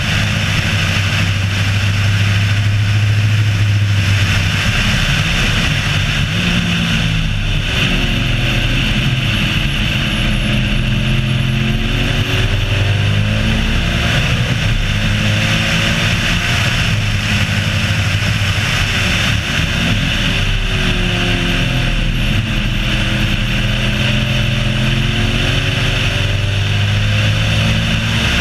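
Race car engine running hard on a track lap, its note rising and falling as it accelerates and backs off, over a steady rushing noise.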